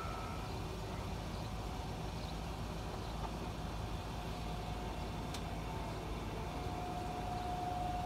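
Distant outdoor tornado warning siren sounding one steady tone during a test, faint at first and swelling over the last few seconds, over a constant hum of interstate traffic.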